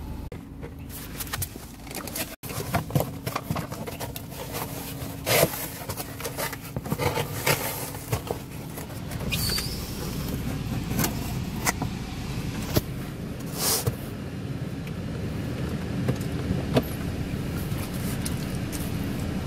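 Steady low rumble of a car's engine and road noise heard from inside the cabin, with scattered short clicks and knocks over it.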